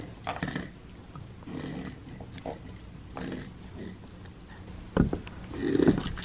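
A cat batting a switched-off plastic toy mouse around on a wooden floor: scattered soft scuffs and taps, a sharp knock about five seconds in, then a louder, lower sound near the end as the cat rolls over with the toy.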